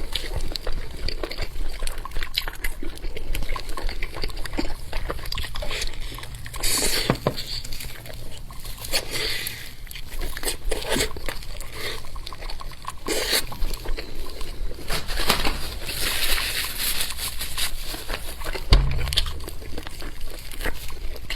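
Close-miked eating sounds: wet chewing, lip smacking and slurping of spicy, saucy food, in an irregular run of clicks and squelches. A dull low bump comes near the end.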